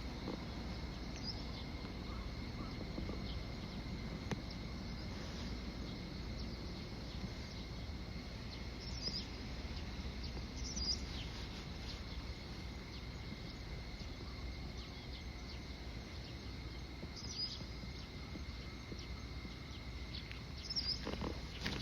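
Quiet outdoor ambience: a steady high insect trill over a low background rumble, with about five short bird chirps spread through it.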